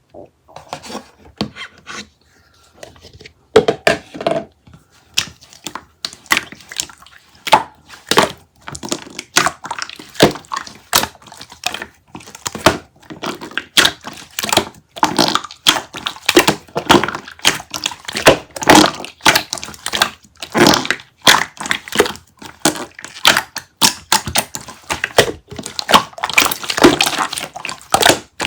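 Rapid, irregular knocks and taps with crunching and crinkling, several a second, busiest in the second half.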